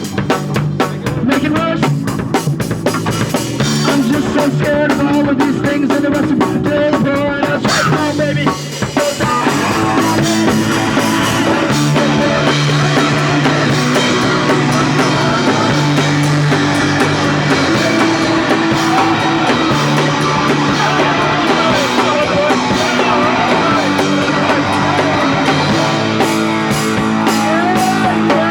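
Punk rock band playing live: drum kit, distorted electric guitar and bass, with singing. Busy drumming fills the first several seconds, there is a short drop about nine seconds in, then the band carries on with held guitar chords.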